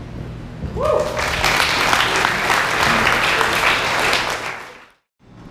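A group of people clapping and cheering, with one rising whoop about a second in. The applause swells, holds, then fades and cuts off near the end.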